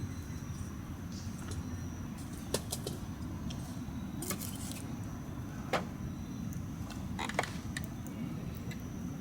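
Wood campfire burning with a low steady rumble and irregular sharp crackles and pops.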